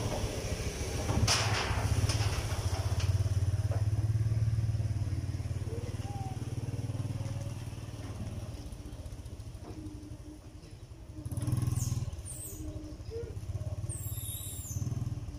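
Motorbike engine running close by, loudest in the first few seconds and then fading away, with a brief swell again about eleven seconds in.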